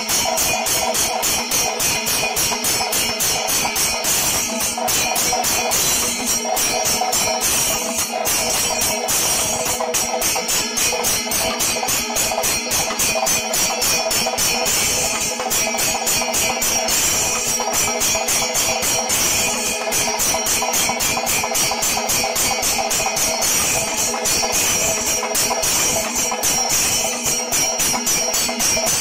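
Kerala temple percussion ensemble (chenda melam): chenda drums beaten with sticks over ringing ilathalam cymbals, a dense, fast, unbroken rhythm.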